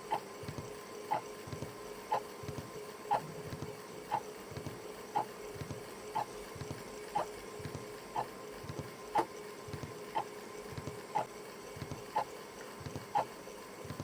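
Clock ticking evenly, about once a second, over a steady low hum.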